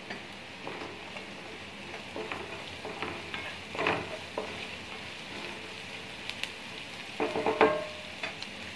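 Chopped onions sizzling in oil in a non-stick kadai on medium flame, stirred with a wooden spatula; the scrape of the spatula stands out about four seconds in and again near the end.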